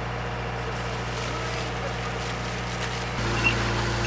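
An engine running steadily at constant speed; about three seconds in its note shifts and it gets slightly louder.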